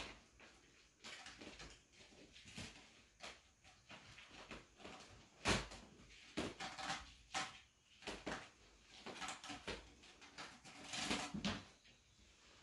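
Kittens scrambling in and around a collapsible fabric play tunnel: irregular rustling and light bumps, with a sharper knock about five and a half seconds in and a cluster of louder scuffles near eleven seconds.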